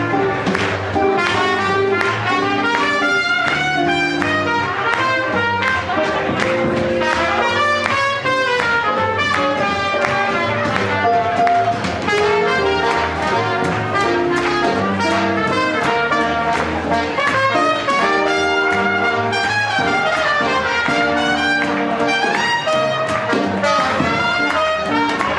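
Swing jazz band playing, with trumpet and other brass to the fore over a steady beat.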